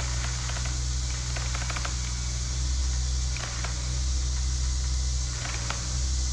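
An engine running steadily at low speed, a low even hum, with a few light clicks scattered through it.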